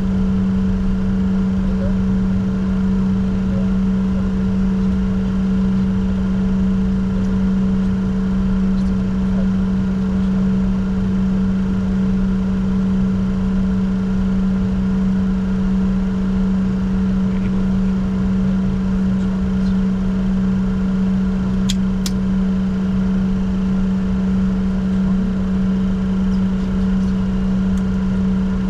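Steady cockpit noise of a Bombardier Challenger 604 business jet: a constant low hum with a few fainter steady tones above it over a rumble, and two faint clicks about three-quarters of the way through.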